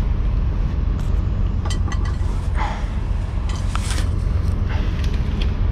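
Steady low rumble of an idling diesel truck engine, with a few light clicks and clinks of small metal parts being handled.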